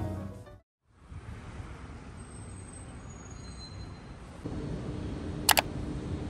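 Background music cuts off, then street ambience with a steady wash of traffic noise. A low steady hum joins about four seconds in, and a brief sharp high-pitched ring sounds near the end.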